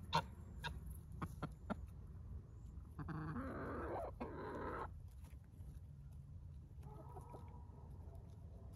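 Backyard chickens clucking. A few sharp taps come in the first two seconds, a louder drawn-out two-part call about three seconds in, and a fainter call near the end.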